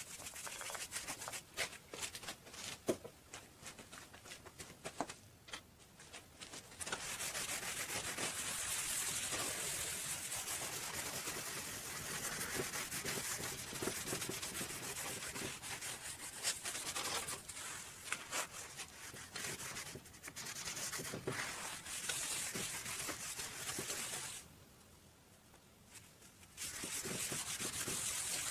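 A paintbrush working finish onto a wooden board in short, scratchy strokes. About seven seconds in, a louder, steady rubbing begins as the wet board is rubbed down by hand. The rubbing stops for about two seconds near the end, then starts again.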